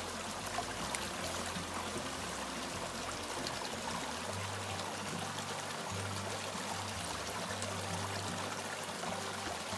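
Shallow stream running over rocks, a steady rush of water, with low background music underneath.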